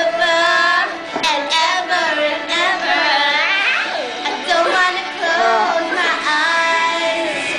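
A girl singing solo, with long held notes and slides in pitch between them.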